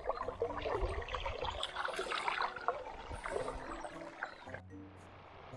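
Water splashing as a hooked fish thrashes at the surface while it is drawn to the landing net. About four and a half seconds in it cuts suddenly to a quieter, steady wash of river water.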